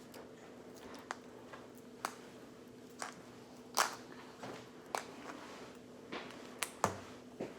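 Scattered clicks and crinkles of a plastic-wrapped Mini Brands capsule ball being handled and unwrapped, over a faint steady hum.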